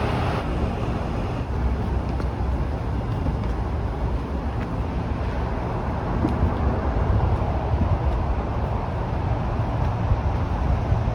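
Steady road-traffic noise from a nearby highway, a continuous low rumble with a hiss of tyres over it.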